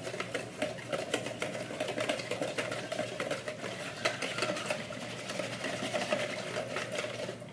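A whisk beaten rapidly round a bowl of liquid marinade (olive oil and red wine vinegar), making a fast, steady run of clicks.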